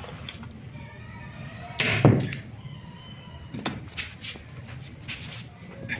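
A sudden whoosh and heavy thud about two seconds in, followed by several light knocks and clicks: upholstery materials and tools being handled at a workbench.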